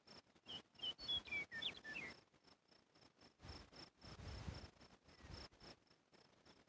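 Faint outdoor ambience: an insect, likely a cricket, chirping steadily at about three to four pulses a second, with a small bird singing a brief phrase of quick, sharp notes about half a second in. A low rumble comes through around the middle.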